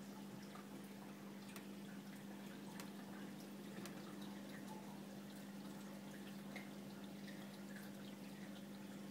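Faint water trickling from a running reef aquarium, with scattered drips over a steady low hum.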